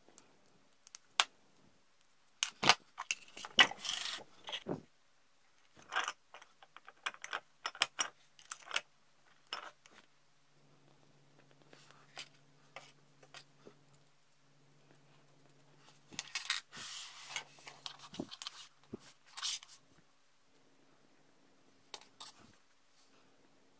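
Small 3D-printed plastic jet-drive parts and a brass drive shaft handled by hand: scattered clicks, taps and light clinks, with two longer spells of scraping and rustling, about three seconds in and again past the middle. A faint steady low hum runs under the second half.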